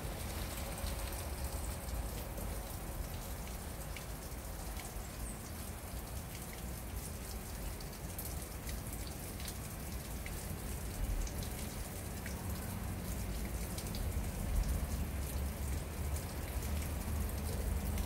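A thin trickle of water falling from a drainage pipe onto a rock and splashing into a shallow pool: a steady patter with many small drip-like splashes. A low rumble runs underneath.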